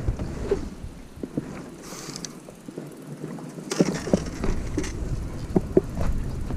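Bicycle being ridden, with wind rumbling on the microphone and scattered clicks and rattles from the bike. The wind rumble drops away for about two seconds midway, then returns with a run of sharper knocks.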